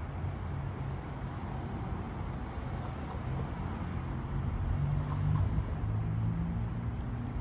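Low, steady rumble with a deep drone, which the listeners take for the distant rumble of a SpaceX Falcon 9 launch.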